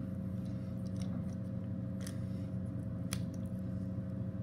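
A steady low hum with a thin constant higher tone, with a few faint clicks and ticks scattered through it.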